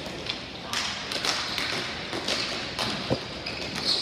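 Ball hockey play: sticks and the ball tapping and clicking on the rink surface, in an irregular run of sharp taps, with a louder crack about three seconds in.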